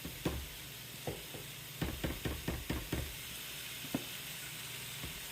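Stir fry sizzling steadily in a pan, with light taps and knocks over it: a few single ones, and a quick run of about half a dozen around the middle, while turmeric is being added to the sauce.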